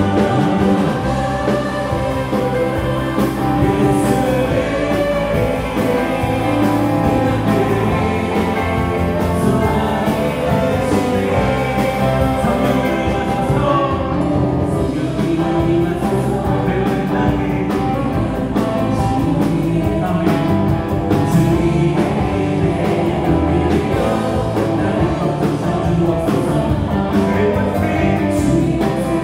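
Live worship band playing a praise song: electric guitar, bass guitar, Korg Triton and Yamaha Montage keyboards and a drum kit, with voices singing along.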